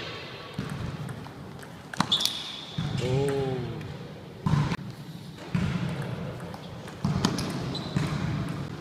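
Table tennis rally: the ball clicking sharply off the paddles and table at irregular intervals, a few hits leaving a short high ring, echoing in a large sports hall. Dull low thuds run underneath, and a short squeak rises and falls about three seconds in.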